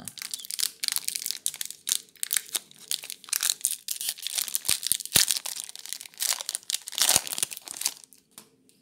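Foil Magic: The Gathering booster-pack wrapper crinkling and tearing as it is pried open by hand, a dense run of crackles; the wrapper is stubborn and hard to open. The crackling stops shortly before the end.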